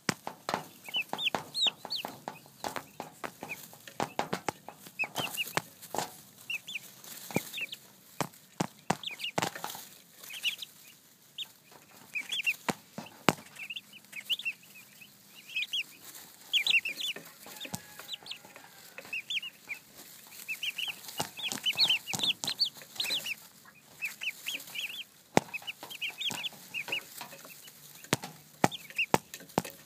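A group of turkey poults peeping in many short, high chirps. Frequent sharp taps close to the microphone are mixed in.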